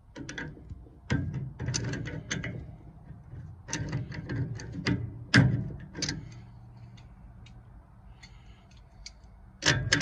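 Wrench tightening a black iron gas pipe nipple into a furnace gas valve: bunches of metallic clicks and clanks with heavy knocks carried through the furnace cabinet, the loudest knock about five seconds in.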